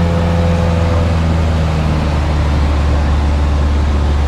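Cessna 172's piston engine and propeller droning steadily in cruise, heard inside the cabin. A few of its higher tones ease off about a second in.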